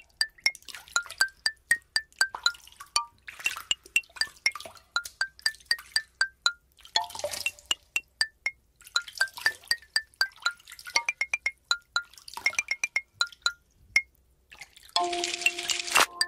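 Small plastic building bricks clicking as they are pressed onto one another, a rapid irregular run of sharp clicks, many with a short bright ping, with spells of rattling as loose pieces are handled. Near the end, music with steady tones comes in.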